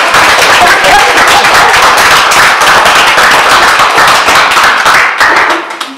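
Audience applauding: a dense patter of many hands clapping, dying away near the end.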